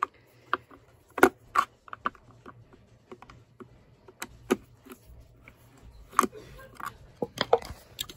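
Screwdriver working screws out of an old shop vac's motor housing: irregular small metal clicks and taps, with a few sharper knocks.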